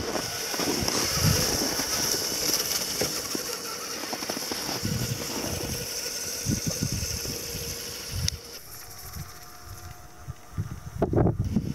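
A 1/10-scale RC FJ40 crawler's electric motor and geared drivetrain whining steadily while the truck knocks and clatters over hard, bumpy snow. About eight seconds in the whine stops with a click, leaving quieter clattering, and a few loud knocks come near the end.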